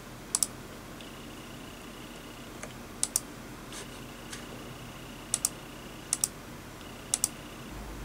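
Computer mouse button double-clicked five times, sharp paired clicks a second or two apart. A faint high steady tone comes and goes behind them.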